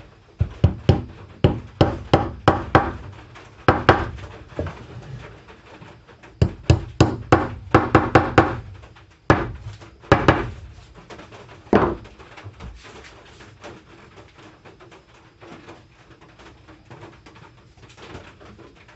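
Claw hammer tapping wooden dowels into screw holes in a wooden board, driving the plugs in over the screw heads. Two quick runs of sharp taps, then three single blows a second or so apart.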